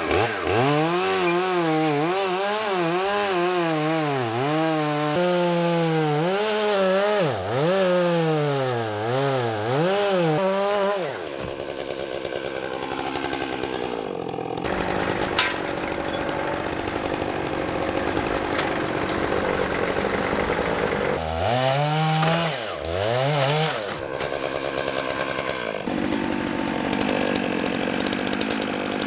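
Stihl chainsaw bucking a large oak log, its engine note dipping again and again as the chain bogs in the cut and rising as it frees up. Between these stretches the cutting runs rougher and steadier, and near the end it settles to a steadier note.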